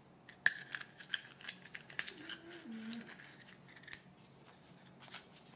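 Small plastic toy capsule and its folded paper sticker sheet being handled, the sheet pulled out and unfolded: soft crisp crinkles and clicks in a quick run for about three seconds, then a couple more near the end.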